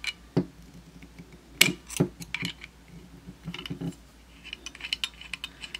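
Irregular small clicks and knocks of metal parts being handled on a manual pearl rivet setting tool while its tip is changed, with one sharper knock about a second and a half in and a run of lighter ticks near the end.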